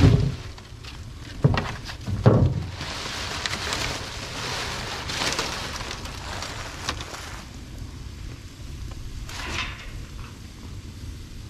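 Trash fire in a 55-gallon steel drum burn barrel crackling and hissing as it catches and flares up, loudest in the middle. A few heavy low thumps come in the first two seconds or so.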